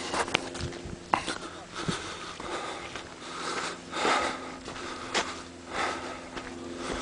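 A hiker breathing hard on an uphill trail, with loud breaths coming in gusts every second or two and a few sharp clicks in between.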